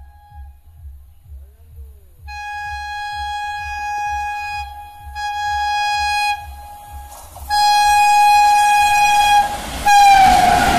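WAP-7 electric locomotive's horn sounding in several long blasts as the train approaches at speed. About ten seconds in the horn's pitch drops sharply as the locomotive passes, and the rushing noise of the passing train comes in.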